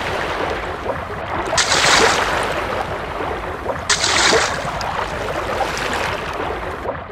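Sea water washing and splashing, a steady rushing hiss with two louder surges of spray about two and four seconds in.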